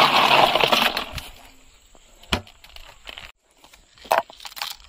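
Ice cubes rattling and crunching as a hand digs through loose ice in a plastic cooler box, loud for about the first second. A few separate clinks and knocks follow, the loudest near the end, as ice chunks are dropped into a hollowed-out watermelon.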